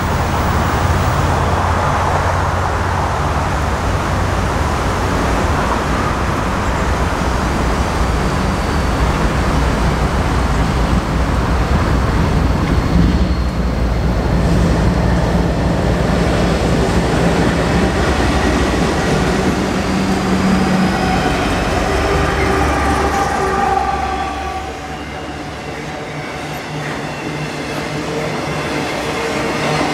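Diesel locomotives of a long intermodal freight train working past, a loud steady engine rumble. About 24 seconds in the locomotives are by and the rumble drops; the freight cars roll past with thin, drawn-out wheel squeal.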